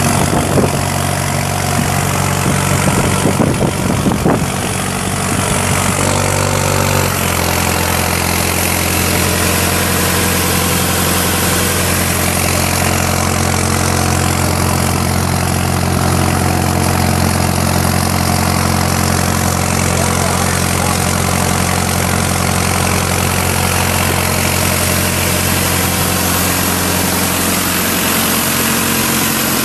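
The 1998 LeRoi 375 air compressor's four-cylinder diesel engine running steadily at idle. There are a few knocks in the first seconds, and the engine note shifts slightly about seven seconds in, then holds steady.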